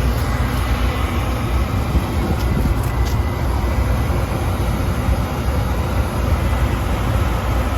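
Gas-fired heating unit running in heat mode: burners lit and draft inducer motors running, a steady low rumble.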